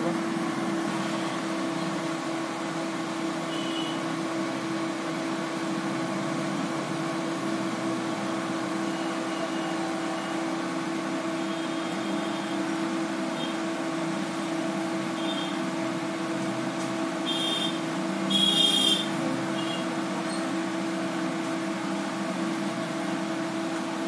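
Steady machine hum with a constant low tone, with a few short high chirps about three-quarters of the way through.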